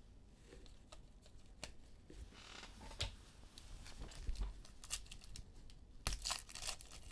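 Basketball trading-card packs being torn open and their wrappers crinkled, with small clicks of cards being handled; the crackling gets busier and louder about six seconds in.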